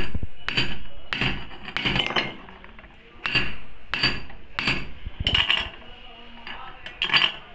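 Metal hammer blows tapping a bush into the connecting rod of a Hero Splendor Plus crankshaft: about ten sharp, ringing metallic knocks at irregular intervals, with a pause shortly before the end.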